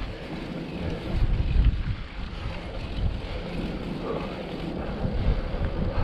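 Wind buffeting the microphone and tyre rumble from a mountain bike ridden over a rough farm track, an uneven low rumble that swells and fades.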